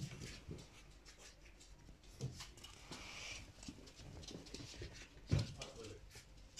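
Young wire-haired dachshund puppies scuffling and playing on a wooden floor: scattered small knocks and patter from paws and bodies, with one louder thump about five seconds in.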